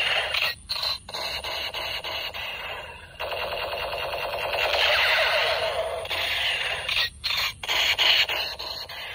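Electronic gunfire sound effect from a battery-powered light-up toy sniper rifle, a rapid-fire rattle played through its small built-in speaker. It comes in several bursts separated by brief gaps.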